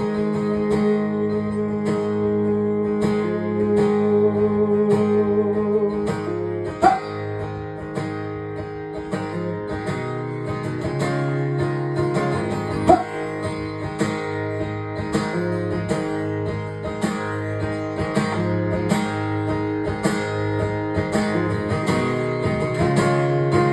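Instrumental break of a song, led by acoustic guitar playing chords with a steady beat.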